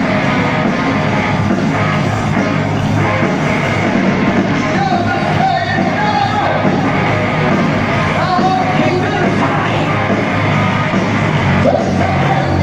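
Heavy metal band playing live in a stadium, heard from far back in the crowd: loud, steady distorted guitars, bass and drums, with a voice singing over them at times.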